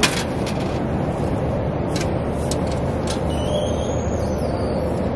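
A few sharp clicks of coins being dropped into the coin slot of a coin-operated kiddie bus ride, heard over a loud, steady rushing background noise.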